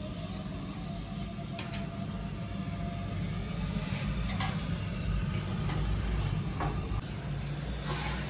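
Steady low rumble of a busy street-food kitchen with a few sharp clinks of metal utensils against steel pans. Near the end, broth starts pouring from a plastic bucket into a large clay pot.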